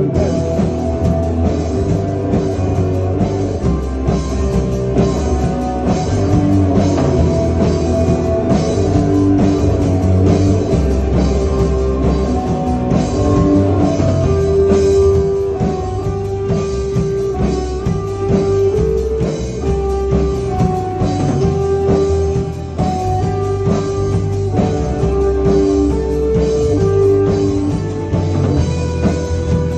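Rock band playing an instrumental passage: electric guitar, bass guitar and drum kit keeping a steady beat, with a held lead guitar melody that comes forward about halfway through.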